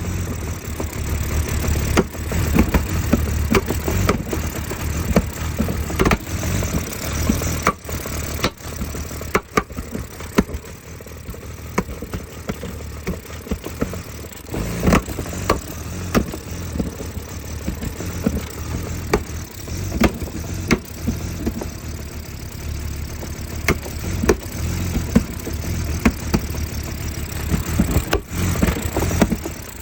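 2004 BMW E46 325Ci's inline-six idling roughly, with irregular sharp pops from the intake manifold.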